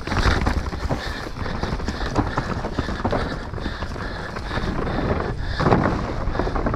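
Mountain bike ridden fast down a dirt trail: tyres on dirt and rocks and the bike rattling over the bumps, with wind buffeting the microphone. A louder stretch comes a little before the end.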